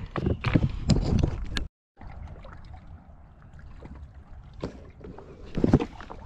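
Close rustling and knocking from a body-worn camera being handled, cut off abruptly about two seconds in. Then a quieter steady hiss of wind, with a couple of louder bumps near the end as the camera is moved.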